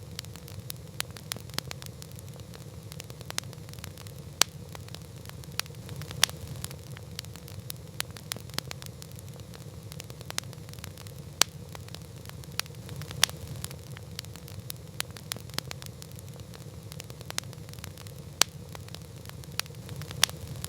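Campfire burning: irregular sharp crackles and pops, a few much louder than the rest, over a steady low rumble.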